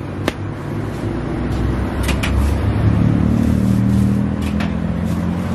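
A steady engine hum that swells about two to three seconds in and then eases, with a few sharp clicks over it.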